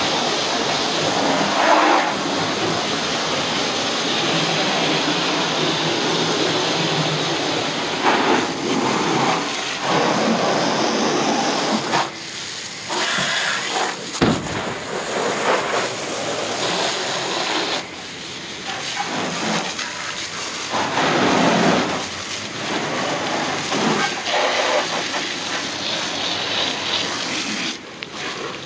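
Pressure-wash wand spraying water onto a pickup truck's plastic bed liner and tailgate: a steady hiss and spatter that swells and dips as the spray moves, dropping off briefly a few times.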